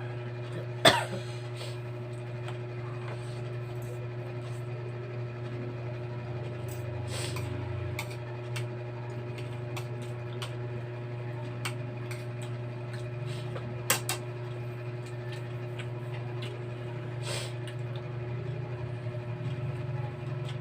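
A few sharp clinks of eating utensils against a bowl or plate, the loudest about a second in and a double one near the middle, over a steady low hum.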